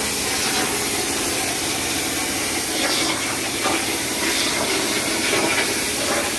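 CNC plasma cutter's torch cutting through steel sheet: the plasma arc and its compressed-air jet give a steady, even hiss.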